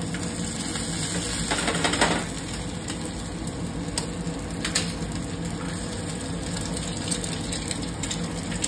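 Chopped onion, green chili and ginger frying in oil in a small pan, stirred with a spoon, with a louder rush of sizzling about two seconds in. A couple of sharp taps follow around four to five seconds in as an egg is cracked and dropped into the hot pan.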